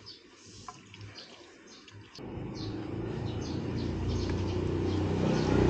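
Kymco DTX 360 scooter's liquid-cooled engine starting about two seconds in and running with a steady low drone that grows louder, just after a coolant refill. Faint bird chirps are heard before it.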